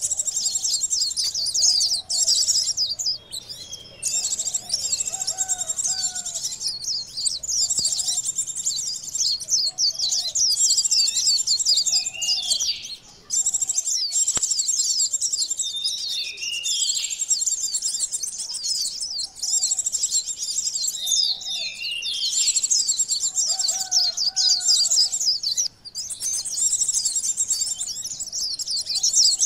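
Sunbirds (konin) calling in a bird-lure recording: rapid, high-pitched chattering trills in long runs broken by brief pauses, with fainter lower call notes underneath.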